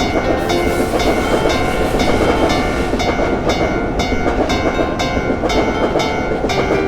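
Animated-train sound effect: a loud, steady rumble of a train running, with a ringing tone repeating about twice a second over it.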